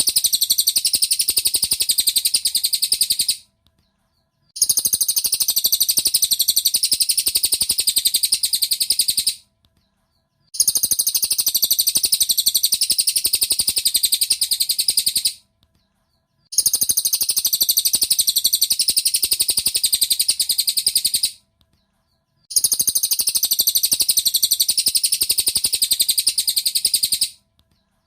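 Cililin bird song: a rapid, high-pitched chattering trill in bursts about five seconds long, each followed by a pause of about a second, repeating in a regular pattern as in a looped masteran recording.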